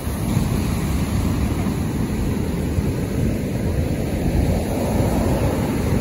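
Surf breaking and washing up a sandy beach, mixed with wind buffeting the microphone as a steady low rumble.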